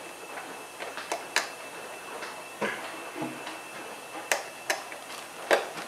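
Scattered plastic clicks and taps from a projector's lamp cover being handled and fitted back into place, about seven in all at uneven intervals.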